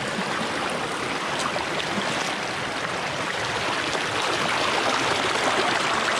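Shallow, rocky stream rushing over stones close to the microphone, a steady wash of flowing water that grows a little louder near the end.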